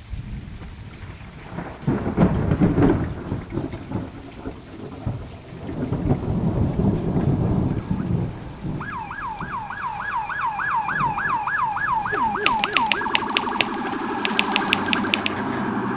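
Thunderstorm with steady rain and thunder rolling loudly about two seconds in and again around six to eight seconds. About nine seconds in, a siren starts yelping, rising and falling about three times a second. Near the end it gives way to a quick run of sharp clicks over steadier tones.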